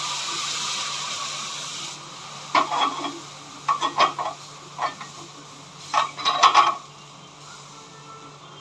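Sweetened milk hissing and sizzling as it is poured into gram flour roasted in hot ghee, the hiss fading after about two seconds. Then a spoon scrapes and clicks against the pan in several short runs as the mixture is stirred.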